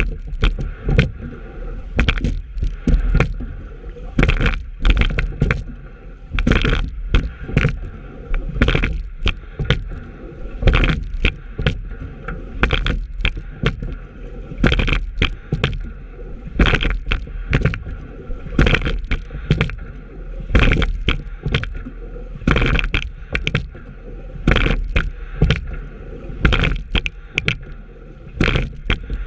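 Sculling boat being rowed steadily, about one stroke every two seconds. Each stroke brings a cluster of knocks and splashes as the oars catch and come out of the water, over a continuous rush of water along the hull.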